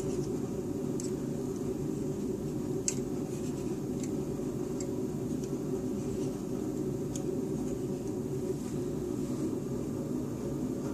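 Steady low background hum, with a few faint light ticks a second or two apart as steel dividers scribe a center line on a brass trigger plate clamped in a vise.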